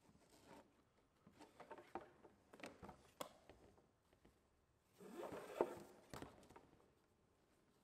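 Thin rudder steering cords being handled and knotted by hand on an inflatable kayak: soft scattered rustles and small clicks for the first three seconds, then a longer, louder rub about five to six seconds in as a line is drawn through the hands.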